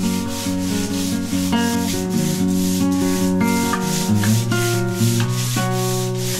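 Background guitar music over quick, even rubbing strokes, about four a second, as a hand works over the wooden body of a jointer plane.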